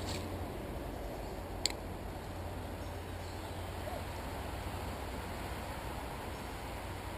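Quiet, steady outdoor background by a river, with a low steady hum and one short sharp click about two seconds in.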